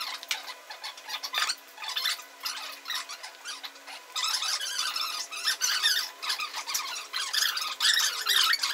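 Plastic fairing panels of a Peugeot Tweet 125 scooter's handlebar cover being worked loose by hand: a run of quick, irregular squeaks, creaks and scrapes of plastic on plastic, with small clicks.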